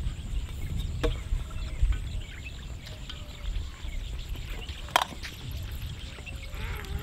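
Birds calling faintly over a steady low rumble, with two sharp clicks, about a second in and about five seconds in.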